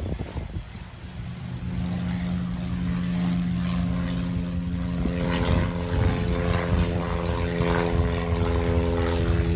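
Single-engine propeller plane climbing out just after takeoff: a steady engine drone that grows louder over the first couple of seconds, with more overtones coming in about halfway through.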